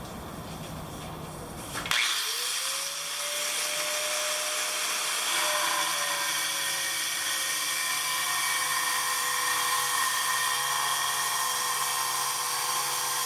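A 4.5-inch angle grinder with a dry-cutting turbo diamond blade is switched on about two seconds in. Its whine rises quickly and settles to a steady pitch, then it keeps up a loud, high-pitched whine and grinding hiss as the blade cuts porcelain tile.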